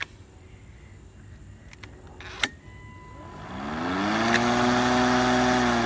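Greenworks 40V 16-inch cordless lawn mower starting: a click about two and a half seconds in, then the electric motor and blade spin up with a rising hum about a second later and run steadily, on a fully charged battery.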